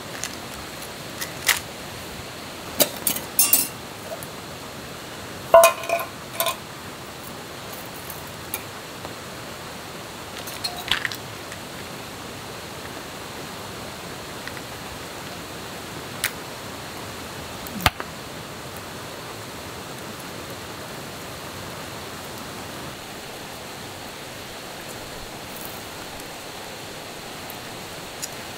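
A handful of sharp clinks and clicks as camp gear is handled, most of them in the first several seconds and a few more scattered later, some ringing briefly. Under them runs a steady rush of flowing stream water.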